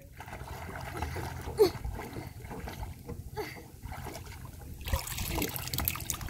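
Light splashing of water from a child swimming, growing louder in the last second or so, over a steady low rumble. A brief, louder knock comes about one and a half seconds in.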